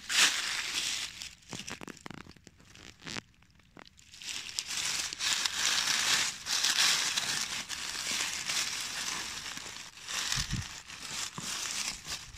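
Dry fallen leaves crunching and rustling: footsteps through the leaf litter, then a hand pushing the leaves aside around a mushroom. Quieter for a couple of seconds about two seconds in.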